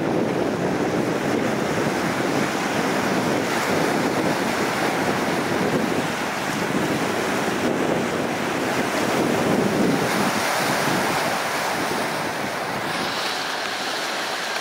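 Choppy sea washing in among the boulders of a rocky shore, small waves breaking in a steady rush, with wind noise on the microphone.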